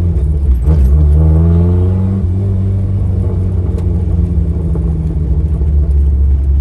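Turbocharged Mazda Miata's four-cylinder engine pulling under acceleration, its pitch climbing, breaking briefly with a click under a second in, climbing again, then settling to a steady drone from about two seconds on.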